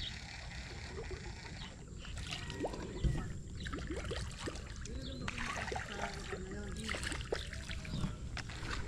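Fishing lure splashing and gurgling along the water surface as it is reeled in, with scattered small clicks and one thump about three seconds in.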